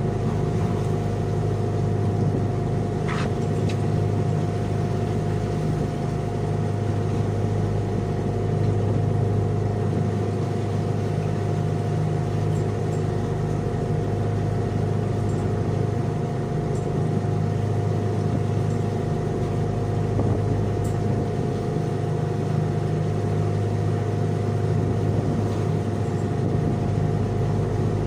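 Engine aboard a fishing boat running steadily: a constant drone with a steady hum, never changing speed. A faint short tick about three seconds in.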